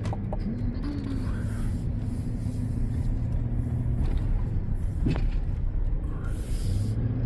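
A tow vehicle's engine and road rumble as it pulls a travel trailer out across traffic, the engine note rising shortly after the start as it accelerates, then running steadily. There is one short knock about five seconds in.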